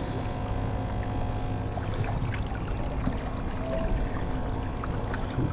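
Steady low engine drone with a wash of water noise underneath, unchanging throughout.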